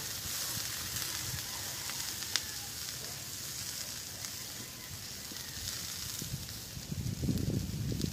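Food sizzling on a charcoal grill, with a steady hiss and a few sharp crackles from the coals. A louder low rumble comes near the end.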